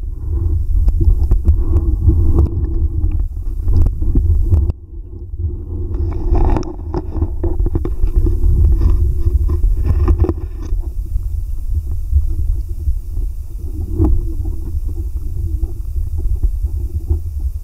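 Low, steady rumble of stream water moving around an underwater camera, with scattered small clicks and knocks.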